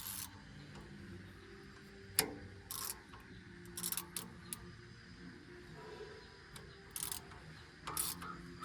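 Ratchet wrench clicking in short, irregular strokes, turning the threaded tensioner rod to take up slack in a firewood processor's saw chain.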